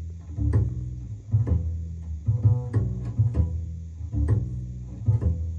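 Upright double bass played pizzicato, a run of plucked low notes opening a jazz recording, played back over hi-fi loudspeakers.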